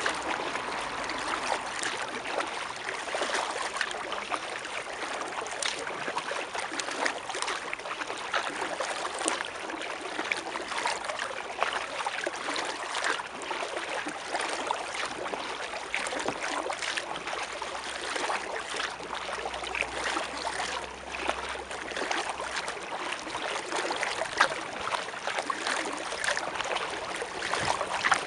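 River water splashing and trickling close around a kayak moving along, a steady wash of water sound dotted with many small splashes.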